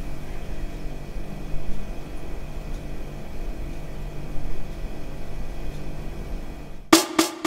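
A steady low hum with a faint hiss. About seven seconds in, the song's intro cuts in with a few sharp plucked notes.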